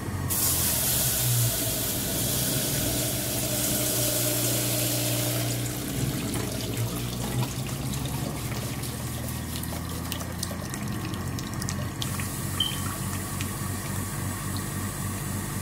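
PowerXL self-cleaning juicer running its rinse while hot water is poured into the chute. Water rushes through and streams from the spout into a stainless steel bowl over a steady motor hum. The pouring is loudest for the first five seconds or so, then eases to a lighter stream with a few light clicks.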